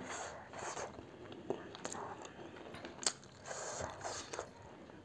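Faint chewing and eating noises from people eating instant ramen noodles with chopsticks, with a few sharp clicks.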